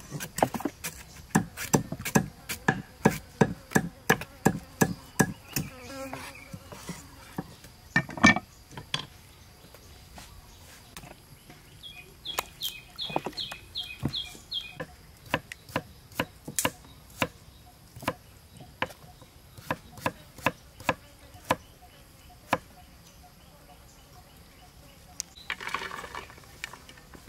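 Cleaver chopping on a wooden chopping board: a quick run of knocks about three a second, one loud blow about eight seconds in, then slower scattered chops. A faint steady high insect drone runs underneath.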